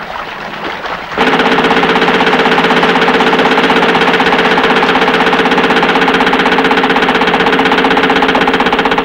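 A Maxim machine gun firing one long, unbroken burst of rapid shots, starting abruptly about a second in.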